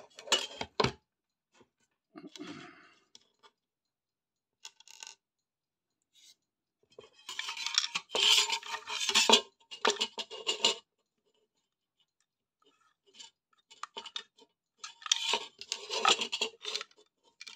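Metal clinking, rattling and scraping in several bursts with quiet gaps between, as the metal case of an old power supply is handled and worked with a screwdriver.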